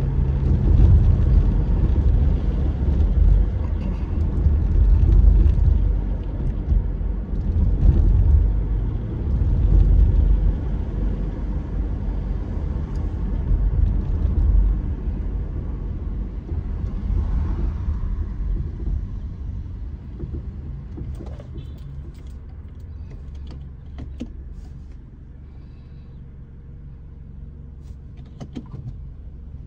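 Car cabin road noise: a low rumble of tyres and engine while driving, fading down over the second half as the car slows, with a few faint clicks near the end.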